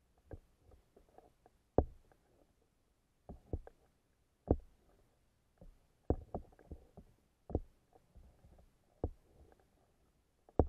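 Irregular dull knocks and thumps picked up underwater, about ten of them, spaced half a second to a second and a half apart, with a faint low hiss of water between them.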